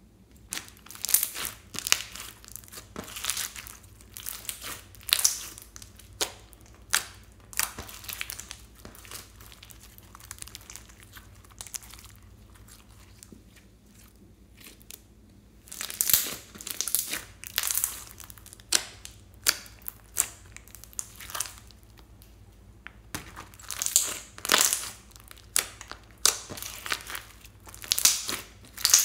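Glossy slime mixed with small foam beads being stretched, folded and squeezed by hand, giving clusters of sharp sticky crackles and pops, with quieter spells about a third of the way in and again past the middle.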